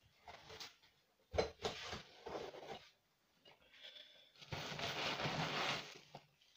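Packing peanuts rustling as they are handled and gathered in a cardboard box: a few short bursts, then a longer spell of rustling in the second half.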